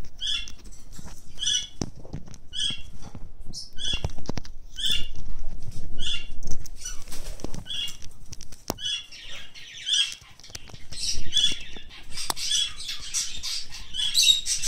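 Sulphur-crested cockatoo eating a piece of persimmon held in its foot, scraping the flesh off the skin with its beak: short, evenly repeated scraping sounds about one and a half a second, with a few sharp beak clicks, growing busier near the end.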